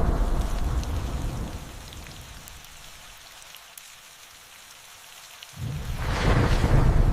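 Steady rain with thunder: a rumble fades away over the first two seconds, leaving only the rain hiss with scattered drop ticks, then a new roll of thunder starts suddenly about five and a half seconds in and swells loud.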